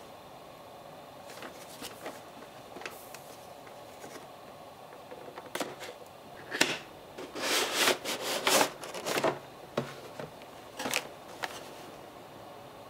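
Unboxing a cardboard figure box: small clicks and scrapes as a box cutter works at the tape, then, about halfway through, a few seconds of loud crinkling and scraping as the box is opened and the plastic blister tray is slid out, with a couple of sharp clicks near the end.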